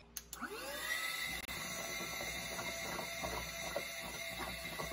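Cordless wet-and-dry handheld vacuum switched on with a click just after the start, its motor whine rising in pitch and then holding steady. Irregular slurping comes in from about halfway as the crevice nozzle sucks up water from a bowl.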